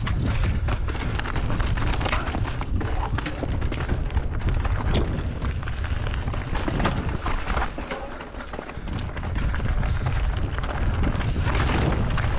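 Wind buffeting a helmet- or bike-mounted GoPro microphone with a heavy rumble, over the rattle and knocks of a Canyon Strive enduro mountain bike descending a rough trail at speed. The clatter eases briefly about two-thirds of the way through.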